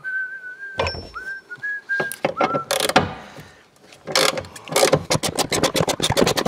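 A person whistles a few short notes over the first two seconds or so, with a knock or two of tools. From about four seconds in, a hand ratchet clicks rapidly as it backs out a loosened T45 Torx bolt.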